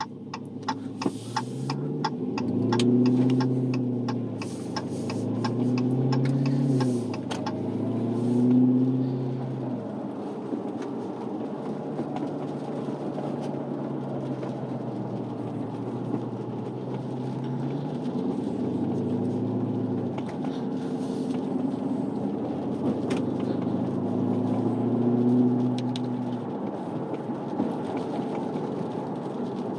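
Supercharged 6.2-litre Hemi V8 of a Dodge Challenger SRT Hellcat Redeye under way: the engine note rises and falls through three pulls in the first ten seconds, then settles to a steadier cruise with a couple of milder swells.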